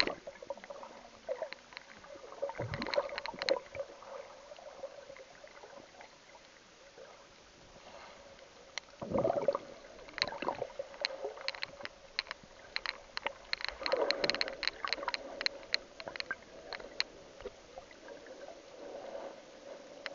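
Muffled water sloshing and gurgling around a submerged camera, with bursts of sharp clicks and knocks separated by quieter stretches.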